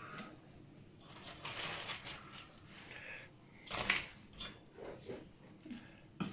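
Faint kitchen handling noises of utensils and fingers working in a stainless pan of boiled crabs, with one louder clatter about four seconds in.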